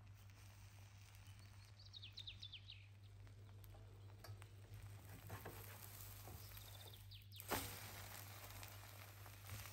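Egg mixture frying quietly in a nonstick pan under slices of egg-soaked bread. About seven and a half seconds in there is one sharp scrape of a plastic spatula against the pan as the egg is folded over the bread.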